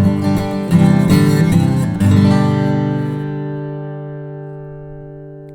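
Acoustic guitar strumming the closing bars, then a final chord struck about two seconds in that rings on and slowly fades away.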